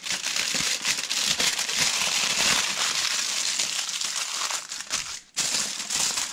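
Aluminium foil crinkling and crackling as it is folded and scrunched by hand into a parcel, with a brief break about five seconds in.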